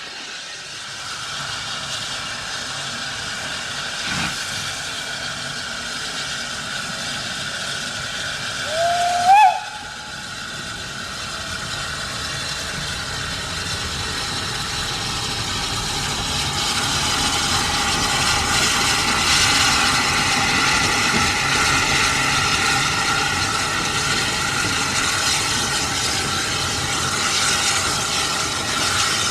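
Steam locomotive with a steady hiss of steam, giving one short whistle blast about nine seconds in that rises in pitch as it opens; the hiss and running noise then build gradually louder.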